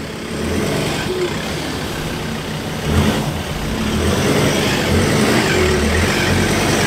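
Ford Ranger ute's engine revving under load as it crawls over rutted dirt off-road. It gets louder about three seconds in.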